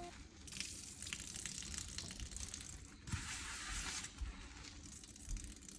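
Wet cleaning sounds: stretches of hissing, water-like noise about a second long, with a few soft knocks in between.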